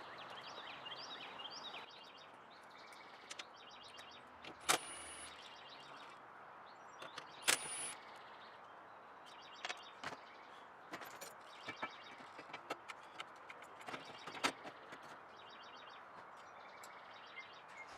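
Hand tools working on a car: scattered light clicks and metallic clinks, with two sharper clanks about five and seven and a half seconds in. Birds chirp in the background over a steady hiss.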